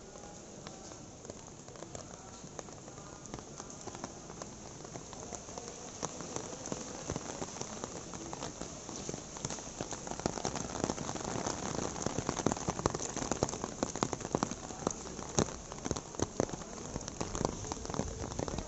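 Heavy rain falling on wet stone paving, a dense hiss with many sharp drop splashes. It grows steadily louder through the second half.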